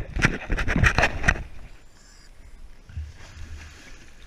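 Handling noise from a GoPro camera: a quick run of knocks and rubbing against the camera for about the first second and a half, then quieter boat background with a short low rumble about three seconds in.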